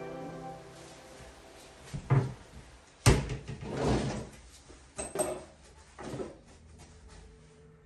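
Wooden kitchen cabinet door and drawer being shut and opened: a series of knocks and clunks, the loudest about three seconds in, with a rustle of handling between them.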